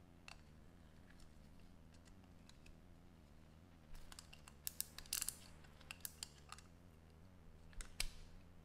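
Faint scattered clicks and small handling knocks over a low steady hum, with a cluster of clicks about four to six and a half seconds in and one sharper click near the end.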